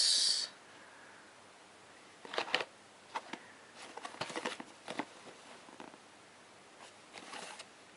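Cardboard phone box with a plastic front window being handled and turned over in the hands: soft rustles and scrapes in a few brief clusters, after a short hiss right at the start.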